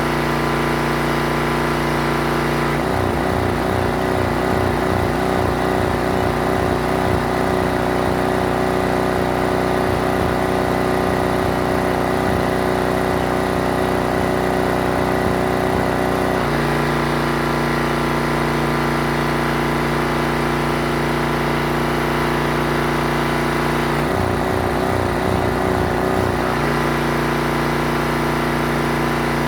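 Pressure washer's gasoline engine running steadily. Its note turns rough and pulsing for two stretches, the first from about three seconds in to about sixteen, the second shorter, around twenty-four to twenty-six seconds.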